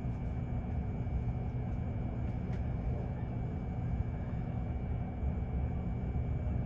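Railway station platform ambience: a steady low rumble with a faint constant hum underneath and a single faint click about two and a half seconds in.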